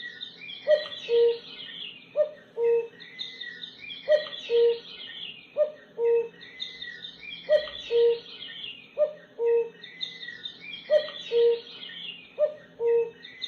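Birdsong: a low two-note call, the second note lower and longer, repeating about eight times, over steady high twittering of small birds. It starts abruptly.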